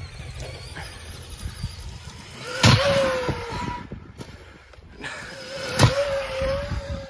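Electric radio-controlled truck driving hard: a steady motor whine under throttle, broken twice by a sudden loud bang about three seconds apart.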